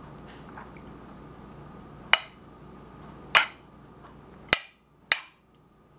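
A metal spoon clinking against a ceramic bowl as sliced onions are stirred in a marinade: four sharp clinks, the first about two seconds in and the last two close together near the end.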